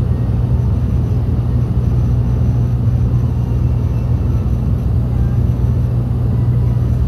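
Dash 8-300's Pratt & Whitney Canada PW123 turboprop engines and propellers heard from inside the cabin: a loud, steady low drone with a strong low hum, during the descent.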